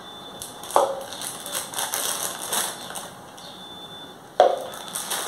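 A plastic packet of chocolate drink powder crinkling as it is handled and poured into a plastic measuring cup. There is a knock just under a second in and a sharper knock near the end as the cup is set down on the stone counter.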